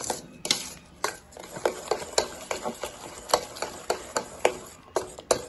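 Spoon stirring mashed banana with sugar and spice in a bowl, clinking against the bowl's side about three times a second, each clink ringing briefly.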